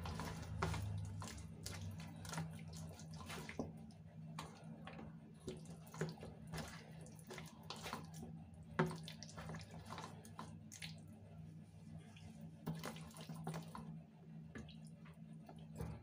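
A hand squishing chicken pieces through a thick yogurt and gram-flour marinade in a steel bowl: faint wet squelches and scattered soft clicks, over a low steady hum.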